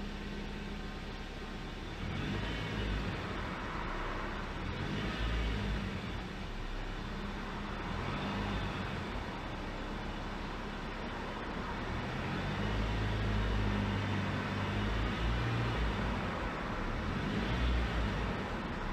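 Suzuki Swift (HT81S) car running, its low engine hum overlaid with a higher whine that rises and falls now and then: the abnormal noise the owner has heard since November 2016.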